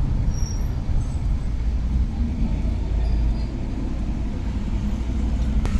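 Busy street traffic, motorcycles among it: vehicle engines running and passing as a steady low rumble, with a sharp click near the end.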